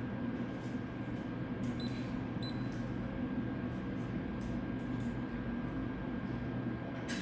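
Steady low hum of dental clinic equipment during treatment, with two short faint high beeps about two seconds in, like the beeps of a cordless dental device.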